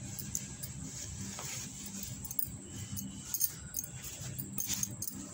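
Saree cloth being folded and tucked by hand, rustling, with glass bangles on the wrist giving light clinks now and then.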